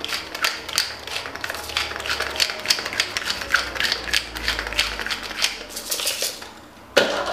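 Hand-twisted spice mill grinding over a bowl of shredded cabbage: a rapid run of dry crunching clicks that stops about six and a half seconds in. A loud knock or clatter follows near the end.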